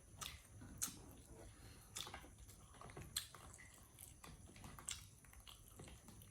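Faint, scattered clicks and small crunches of a monkey biting and chewing food. The sharpest clicks come about a second in, a little after three seconds and near five seconds.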